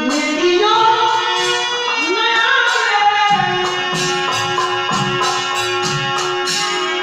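Bhojpuri purbi folk song: a voice sings a gliding melody over a steady drum beat and jingling percussion like a tambourine.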